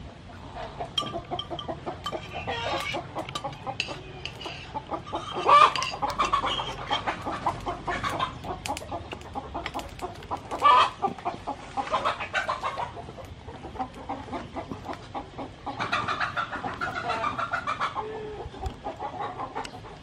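Chickens clucking in short repeated calls, with louder calls about six and eleven seconds in.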